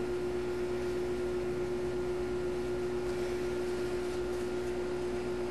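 Steady hum at one constant pitch over a background hiss.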